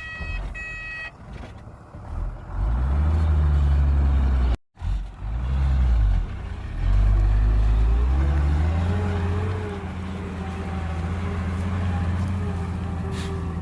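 Reversing beeps stop about a second in. Then a heavy vehicle's engine revs up and down several times. After a brief break in the sound near the middle, it settles into a steady run with a wavering whine above it.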